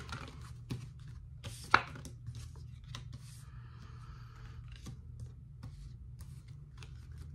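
Tarot cards being handled and laid out: scattered light snaps and taps of card on card, one sharper snap near two seconds in, and a soft sliding rub of a card in the middle. A low steady hum runs underneath.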